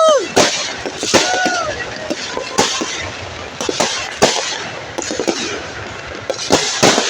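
Firecrackers and fireworks going off in a rapid, irregular string of sharp bangs and crackles, with two short rising-and-falling tones near the start and about a second in.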